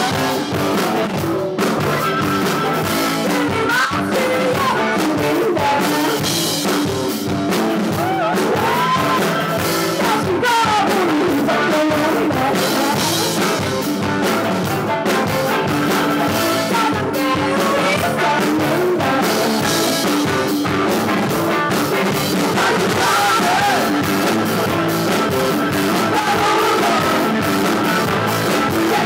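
Live rock band playing: a woman singing over electric guitar, bass and drums.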